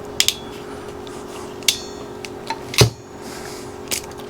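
Hand crimping tool being squeezed closed on an insulated wire terminal: a few separate sharp metallic clicks, one with a brief ring and the loudest about three seconds in, over a steady hum.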